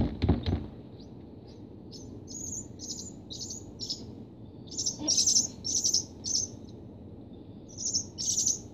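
Barn swallow nestling chirping in runs of short, high, repeated calls, begging for food while being hand-fed. A few low knocks right at the start.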